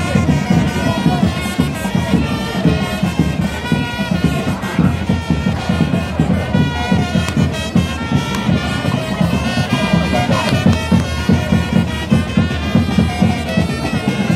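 Music: a reedy wind-instrument melody of held notes over fast, busy drumming.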